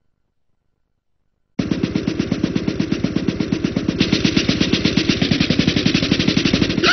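A fast, even rattle of sharp beats that starts suddenly about a second and a half in and runs on steadily.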